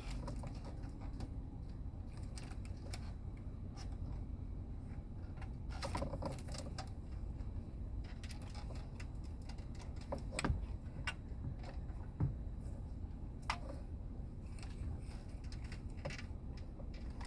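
Scattered clicks and light rattles from hands working a radio out of a car dashboard and unplugging its connectors, over a steady low hum. A few sharper clicks stand out about halfway through.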